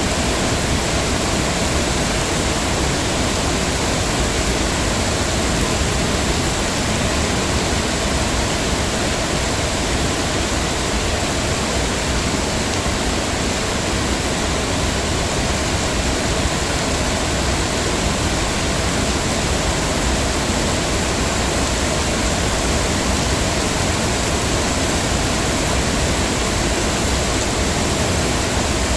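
Heavy rain falling as a steady, dense hiss with no distinct drops or other events.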